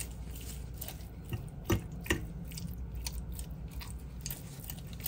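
Cooked salmon being shredded on a plate: soft, wet flaking sounds with a few sharp clicks, the loudest about two seconds in, over a low steady hum.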